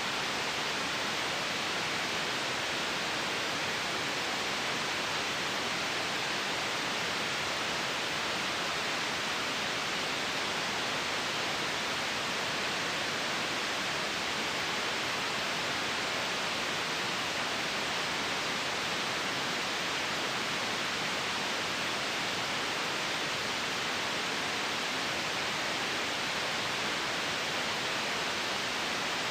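Steady white noise: an even, unchanging hiss, stronger in the upper middle range than in the bass.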